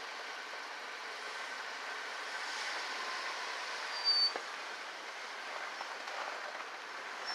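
Car running as it is driven out onto a crust of ice and snow, a steady noise with a short high squeak about four seconds in.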